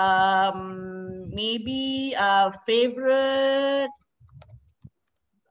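A woman's voice singing in long, drawn-out notes, several held tones in a row. Then it goes quiet, with a few faint keyboard clicks near the end.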